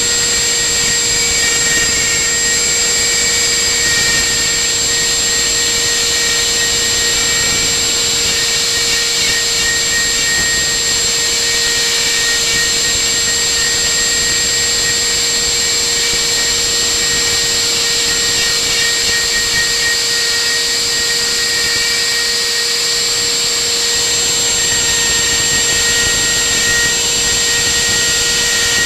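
Homemade CNC router running, its spindle giving a steady high-pitched whine while the bit carves script lettering into a wooden board. Fainter whining tones come and go as the machine moves along the letters.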